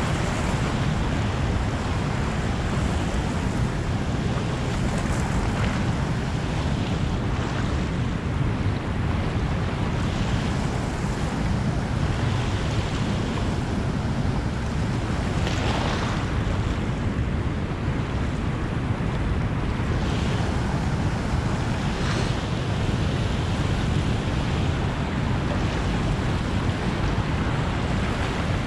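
Steady rush of turbulent water pouring out below a dam spillway, heavy in the low end, with wind rumbling on the microphone.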